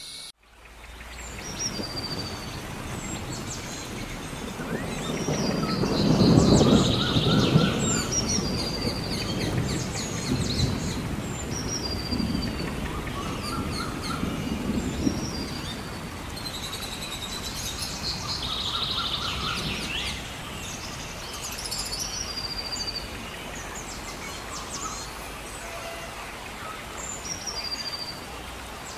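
Nature soundscape: several birds calling with short whistled chirps over a steady hiss of rain. Low rolling rumbles of thunder swell a few seconds in and again around the middle.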